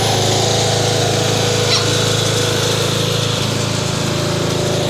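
Craftsman riding lawn mower's Briggs & Stratton 13.5 hp engine running steadily, with one short click a little under two seconds in.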